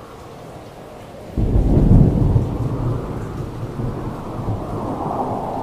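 A thunderclap breaks about a second and a half in, then rumbles on and slowly fades over steady rain.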